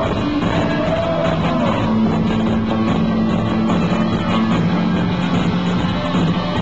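Live rock band playing loud, dense music with held bass notes, recorded on a phone's microphone.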